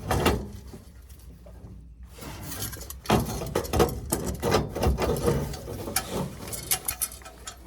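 Small metallic clicks, taps and rattles of a replacement thermocouple being handled and fitted against a gas boiler's pilot burner. A single knock comes at the start, then a dense run of light clicking from about three seconds in.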